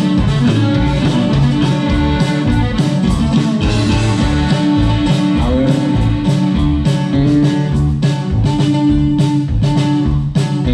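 Norteño band playing an instrumental passage live: button accordion, bajo sexto and electric bass over a steady drum beat.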